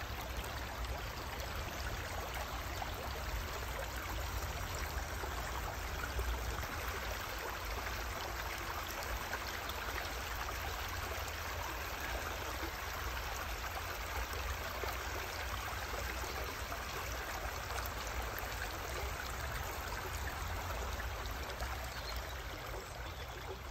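Shallow river flowing over a gravel bed, a steady rushing of water that fades slightly near the end.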